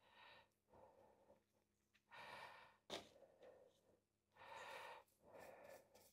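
Near silence: faint soft swishing sounds come and go every second or two, with one light click about three seconds in.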